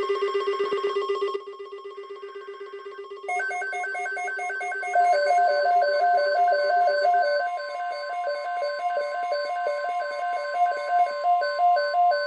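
Overlapping electronic emergency-alert tones: a loud pulsing alarm that drops in level after about a second and a half, then from about three seconds in a rapid two-note warble over a steady high tone, all cutting off just after the end.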